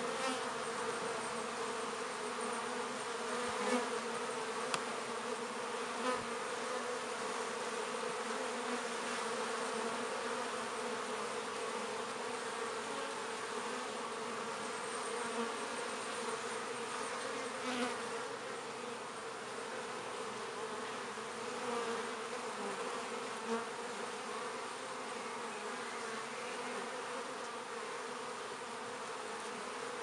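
Honey bees buzzing at a busy hive entrance: a steady hum of many wings, with a few brief louder buzzes as single bees fly close by. The colony is foraging hard, bringing in pollen and nectar.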